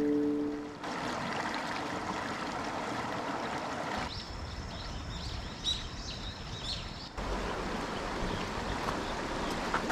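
An acoustic guitar's last notes die away in the first second. A shallow rocky stream then runs steadily. For a few seconds in the middle, closer water trickles and splashes in small high drips.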